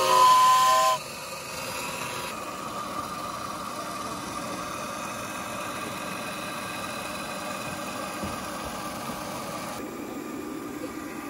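A 1-inch-scale live steam Pacific locomotive's whistle gives one short blast of about a second, several notes sounding together, followed by a steady hiss of steam.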